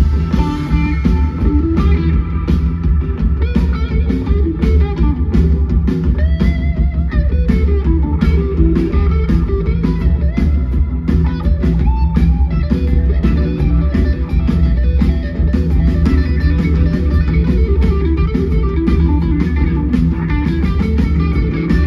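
Live blues-rock band playing at full volume: an electric guitar lead line with notes bent up and down over a steady drum kit and bass.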